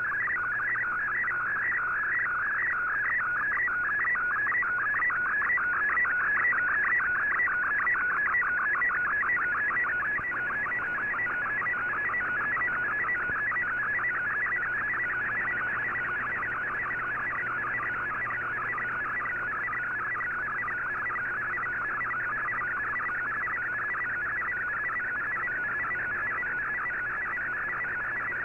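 MFSK colour-picture transmission from a shortwave digital broadcast heard through the receiver: a warbling data tone that repeats line after line, each line one scan of the image being sent. It is a little louder for the first ten seconds or so.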